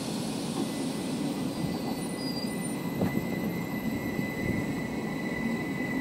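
Stadler FLIRT electric commuter train pulling away from the platform: a steady rumble of wheels on the rails with a thin high electric whine from its drive that grows a little stronger near the end.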